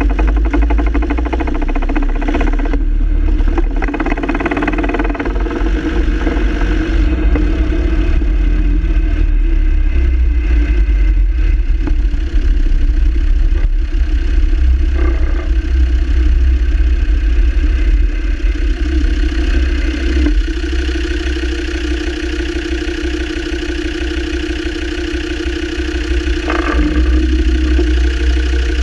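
Land Rover Defender Td5's five-cylinder turbodiesel running steadily, with a clatter that the owner puts down to a rattling double-cardan propeller shaft joint.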